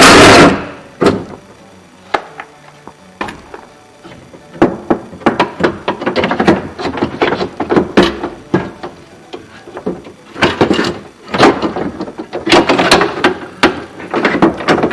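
Irregular clunks, knocks and rattles from hand work inside a pickup's door shell, with one loud knock at the start and busier clattering from about four seconds on.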